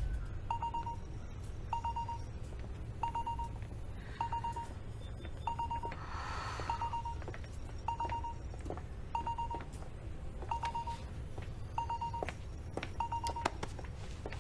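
Short electronic beeps repeating evenly, about three every two seconds, over a low steady hum, with a brief rustling swell about six seconds in.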